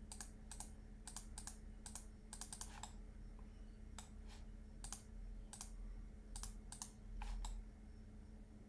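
Computer keyboard and mouse clicks, irregular, in quick clusters for the first three seconds and then more spaced out, over a faint steady hum.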